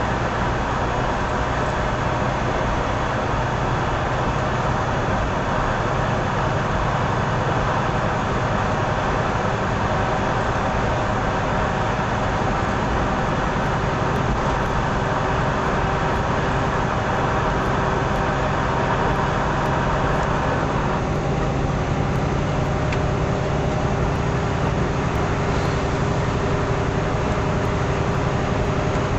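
Steady engine drone and road noise inside a truck cab while driving on a snowy highway. The tone shifts slightly about three quarters of the way through.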